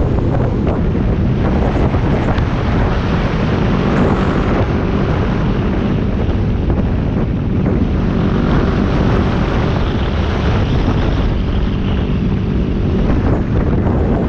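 Heavy wind buffeting the microphone at road speed on a Yamaha WR250X, with the bike's single-cylinder engine running steadily underneath.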